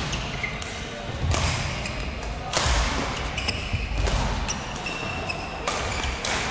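Badminton play on an indoor court: rackets striking the shuttlecock, several sharp hits a second or more apart, with shoes squeaking on the court floor in between.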